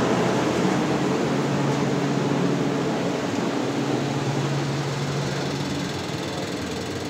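Steady mechanical hum of a generator and a fresh-air ventilation blower running, an even rush of noise with a low steady drone. It grows slightly quieter toward the end.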